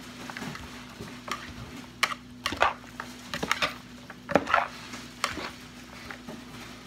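Chopsticks and a metal spoon tossing a wet shredded salad in a plastic bowl: irregular clicks and scrapes of the utensils against the bowl. A faint steady hum runs underneath.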